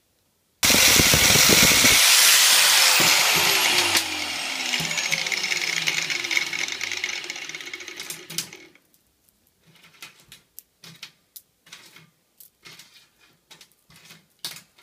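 Small handheld rotary tool grinding on steel chainsaw chain: a loud, high grinding that cuts in abruptly, then the motor winds down with falling pitch over several seconds. After that, loose steel chain links clink and rattle in short, irregular clicks as they are handled.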